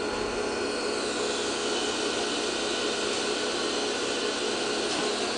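Steady whirring hum of machinery in a Dover hydraulic elevator's machine room, heard through a wall vent grille: an even rush with a constant hum beneath it.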